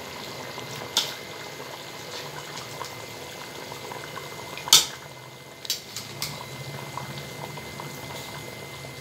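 Meat stock boiling hard in a steel pot, a steady bubbling, at the full boil where the rice goes in. A few sharp knocks sound over it, the loudest about halfway through.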